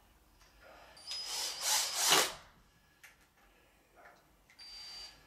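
Cordless drill-driver running, driving mounting screws: one run of about a second and a half with a high motor whine, then a shorter run near the end.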